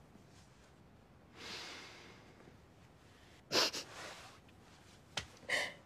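A woman crying softly without words: a long breath, then a sharp sobbing breath about three and a half seconds in and another short one near the end.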